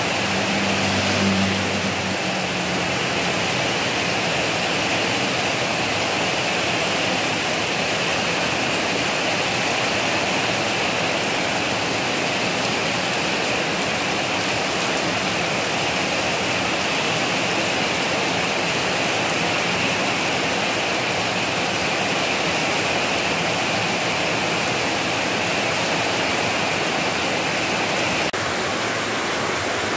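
Heavy rain falling steadily, an even, unbroken hiss of downpour. A brief low hum shows under it in the first two seconds.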